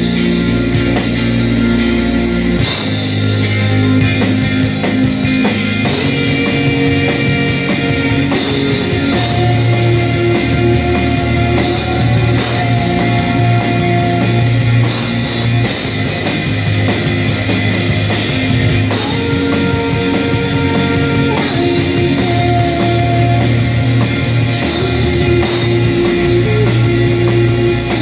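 Live rock band playing loud: electric guitars holding long chords that change every couple of seconds over bass and drums.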